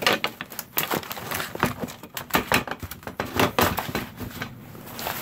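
Handling noise: irregular crackling, rubbing and clicking as a handheld phone is moved about with fingers close to its microphone.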